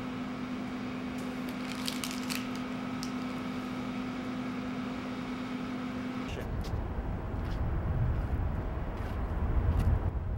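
Steady electrical hum of a quiet room with a few faint clicks. After about six seconds the hum cuts off abruptly and a low outdoor rumble takes over.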